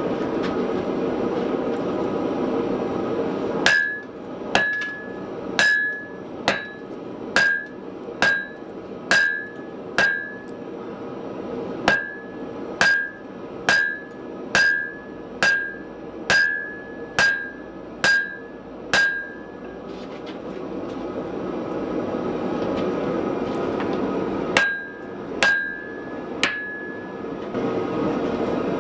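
Hammer blows on hot steel at the anvil: a run of about seventeen strikes a little under a second apart, each ringing briefly at one high pitch. After a pause come three more. Between and behind them runs the steady roar of the forge.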